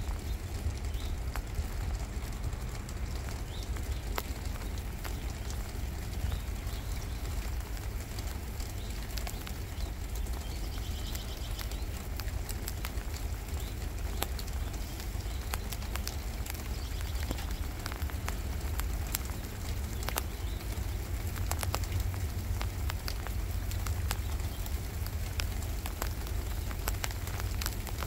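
Strong wind buffeting the microphone as a steady low rumble, with rain falling as scattered light ticks and pattering.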